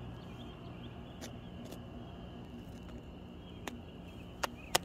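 Quiet outdoor background with a steady high thin drone and a low hum, broken by a few sharp clicks, two of them louder just before the end.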